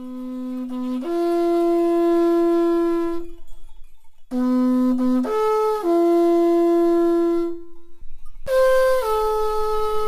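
Solo wind instrument playing slow, long held notes in three phrases with short pauses between them. The first two phrases step up in pitch, and the third starts higher and steps down.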